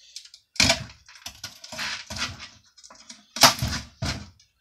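A thin strip of trim being pulled and torn off the edge of an old shelf: a run of short, sharp rips and snaps, the loudest about three and a half seconds in.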